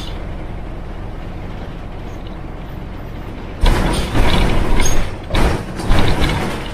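Yangtze River Jingcheng front-engine city bus running with a steady low drone, then loud rattling in several bursts for about three seconds from midway.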